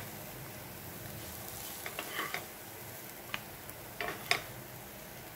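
Wooden spatula scooping fried carrot pieces out of a nonstick pan into a glass bowl: a few light scrapes and clicks about two, three and four seconds in, over a faint steady hiss from the hot pan.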